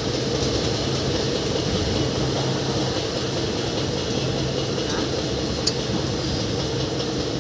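Sainagar Shirdi Express coaches running steadily at speed, heard from an open coach door: a constant rumble and rush of wheels on the rails. One short click comes about three-quarters of the way through.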